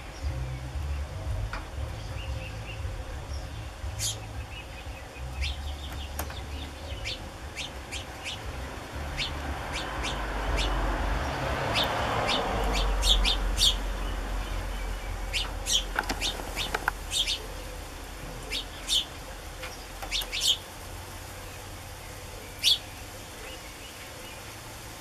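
House sparrows chirping: short, sharp calls repeated irregularly, coming thicker in the second half, from fledglings begging to be fed by an adult. A low rumble lies underneath, with a soft swell of noise in the middle.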